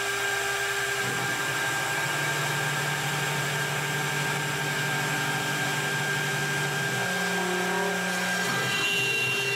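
CNC router's air-cooled spindle running at speed with a steady whine, while the stepper motors hum as the gantry carries the bit over the plywood. The stepper hum changes pitch about 1, 2, 7 and 8.5 seconds in as the moves change.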